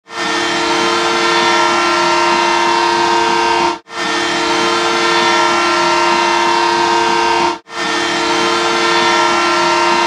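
Hockey arena goal horn blasting in long, steady blasts of nearly four seconds each, several tones sounding together, with short breaks between.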